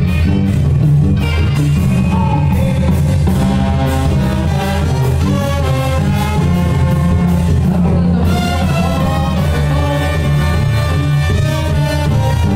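Mexican banda brass band playing live through stage speakers: brass and woodwind melody over a tuba bass line, loud and continuous.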